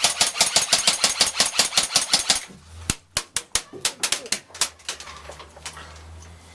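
Airsoft gun firing a long full-auto burst, about twelve shots a second, stopping about two and a half seconds in; a few scattered single shots follow.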